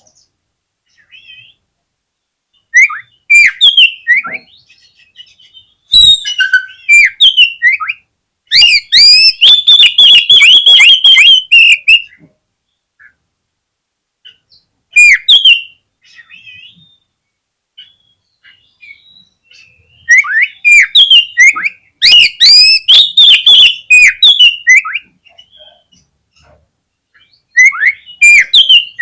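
Oriental magpie-robin singing in bursts of loud, varied whistled phrases separated by short silences, with a long fast run of repeated notes about a third of the way in. This is a provocation song, played to set other magpie-robins singing.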